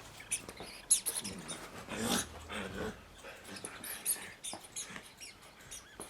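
Puppy playing with a squeaky rubber duck toy: a quick, irregular run of short high squeaks and clicks, with a louder snap about a second in.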